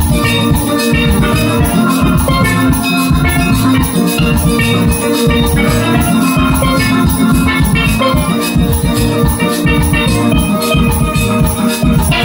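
Single-pan steelband playing live: several steelpans, chrome pans and larger galvanized pans, ringing out a busy melody and chords together over a steady low beat.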